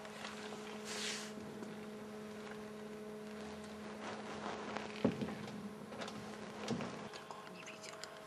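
Quiet room tone with a steady low hum, broken by a short hiss about a second in and two faint knocks, about five seconds in and again near seven seconds.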